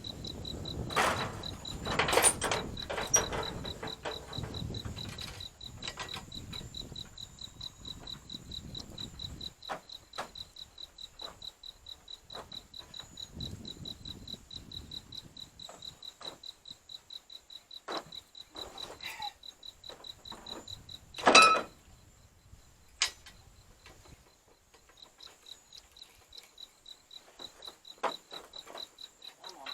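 Crickets chirping steadily, with scattered metal knocks and clanks; the loudest knock comes about twenty seconds in. A run of soft, regular clicks fills the middle.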